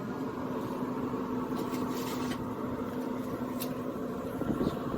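Pellet grill's fan running with a steady hum and rushing noise, with a few faint clicks over it.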